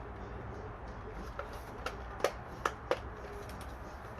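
Handling of hard plastic bike parts: four sharp clicks and knocks within about a second near the middle, over a low steady hum.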